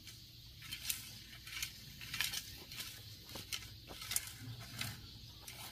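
Wire tines of a metal fan rake scraping and rattling through loose, clumpy garden soil in repeated short strokes, with light clinks against clods and stones. The rake is drawing a thin layer of soil over freshly sown seeds.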